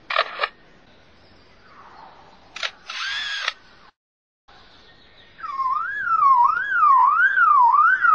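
A lyrebird mimicking a camera: two quick shutter clicks, then another click and a short whirr like a motor drive. From about five seconds in it mimics a car alarm, a loud whooping tone that rises and falls about twice a second.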